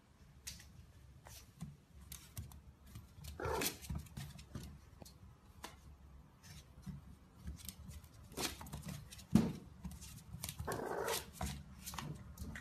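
French bulldog puppy giving a few short yaps and growls, with its claws clicking and scrabbling on a wooden floor. A sharp thump stands out about two-thirds of the way in.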